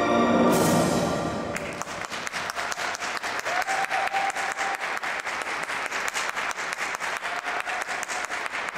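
Program music fading out in the first second or so, then the audience applauding, with the clapping falling into an even beat of about four claps a second.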